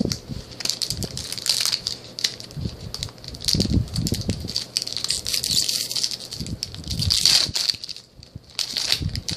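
Foil booster-pack wrappers crinkling and crackling in irregular bursts as they are handled, with a brief lull near the end.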